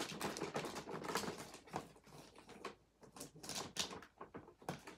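Clear plastic packaging wrap crinkling and crackling as it is handled. A quick run of irregular crackles in the first two seconds thins out to scattered ones.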